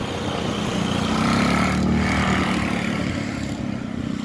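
A motor vehicle passing by, its engine and tyre noise swelling to a peak about halfway through, then fading.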